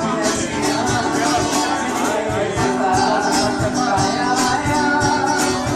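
Background song with guitar, a singing voice and a steady beat.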